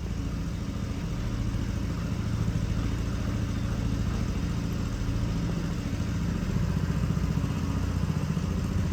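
A small engine running steadily, a low, even, pulsing sound.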